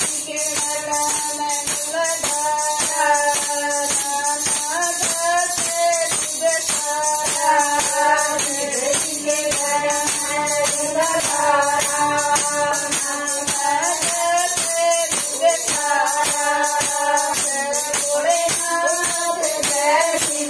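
Group of women singing a Haryanvi bhajan together, keeping time with steady hand claps at about two to three a second.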